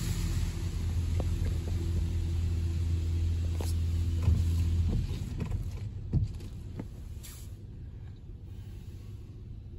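Washworld Razor automatic car wash spraying water over the car, heard from inside the cabin: a steady machine hum under the hiss of water on the glass, cutting off about five seconds in and leaving scattered drips and ticks.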